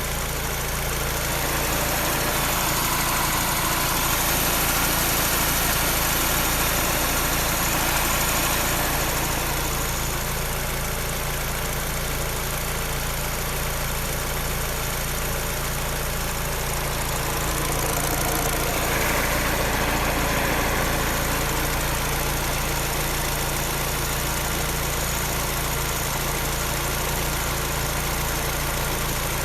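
Peugeot 308 engine running at a steady speed with a clattering noise from the engine that the owner cannot identify.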